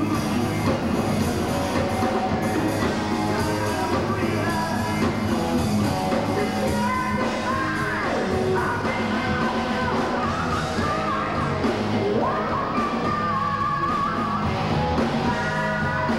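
Heavy metal band playing live: distorted electric guitars, bass and drums, with a male singer belting high vocal lines and holding long high notes in the second half.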